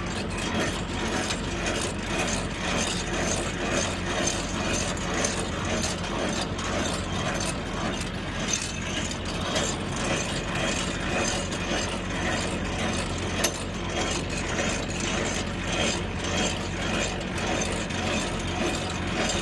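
Refrigerated trailer's diesel reefer unit running, loud and steady, with a low hum under a fast, even mechanical rattle.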